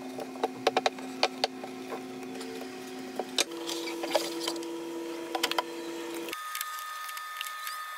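Wood-glue spreading and application on pine 2x4 boards: scattered sharp clicks and ticks of the spreader and glue bottle, clustered in the first second and a half. Under them runs a steady mechanical hum whose pitch shifts twice.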